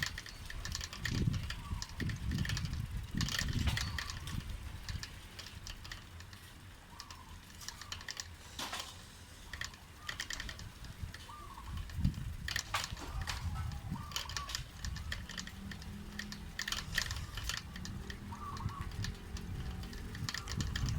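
Wind buffeting the phone's microphone while riding a bicycle, with irregular clicks and rattles from the bike over the path. A faint low hum comes in over the last few seconds.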